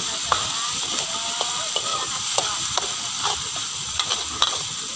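Spice paste and lemongrass sizzling in hot oil in a wok while a metal spatula stirs and scrapes, striking the wok in irregular clinks that ring briefly.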